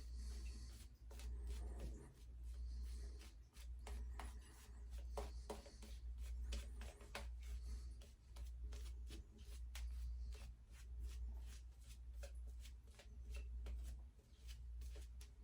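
Shaving brush working thick soap lather, a run of irregular bristly rubbing and scratching strokes over a low, steady hum.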